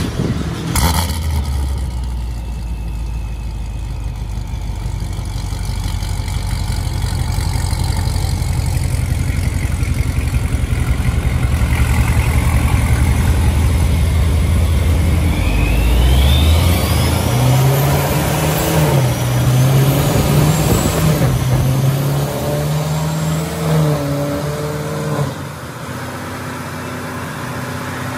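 Supercharged, headered C7 Corvette Stingray's 6.2-litre V8 running on a chassis dyno, driving the rollers at a steady low speed. About halfway through the engine note steps up and wavers as the revs come up, with a faint rising whine, then eases back near the end.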